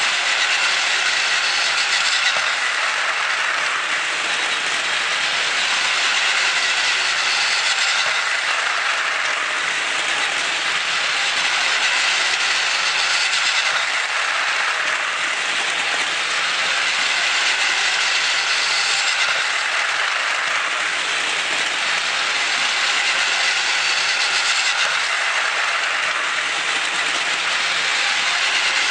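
Plarail E6 Series Komachi toy shinkansen, its motor swapped for a Tamiya Ultra-Dash Motor, running laps on plastic track: a steady whirring running noise of the motor and wheels that swells each time the train passes close, about every six seconds.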